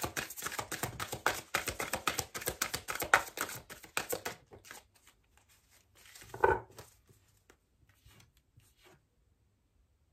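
A tarot deck being shuffled by hand, a fast run of card clicks and rustles for about four seconds. Then cards are laid out on a cloth, with a soft thump about six and a half seconds in and a few light taps after it.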